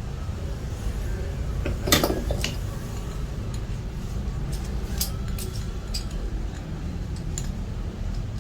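Light metal clinks and taps of small parts and tools being handled during a grinder repair, over a steady low background rumble. The sharpest clatter comes about two seconds in, with scattered lighter clicks after it.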